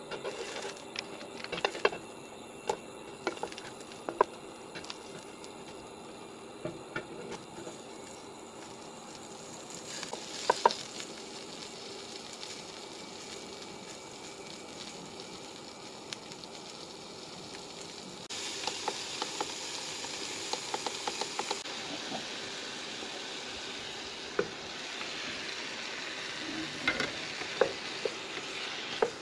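Hot oil sizzling in a nonstick wok as lemongrass stalks and garlic cloves fry, with scattered clicks and scrapes of a wooden spatula against the pan. The sizzle gets louder about two-thirds of the way through, and near the end raw chicken pieces are stirred in the wok.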